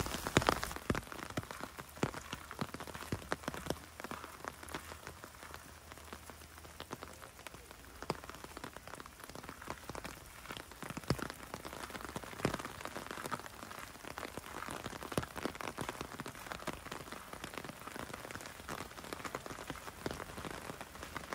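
Rain falling steadily, with many individual drops ticking irregularly.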